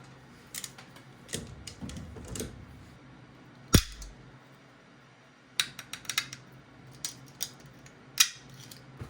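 Small metal tools and parts being handled: scattered sharp clicks and clinks, with one loud knock about four seconds in.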